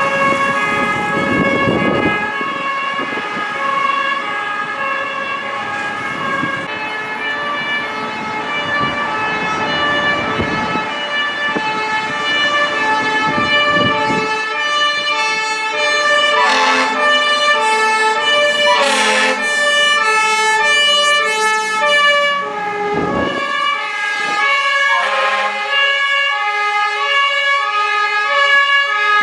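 Several fire engines' two-tone sirens sounding at once, each stepping back and forth between two pitches and overlapping out of step, over the rumble of the trucks' engines as they pass. Two short, louder blasts come a little past the middle.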